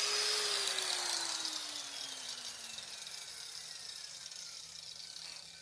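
Electric power tool's motor and spinning disc winding down after being switched off, a whine falling steadily in pitch and fading over about three seconds as it coasts to a stop.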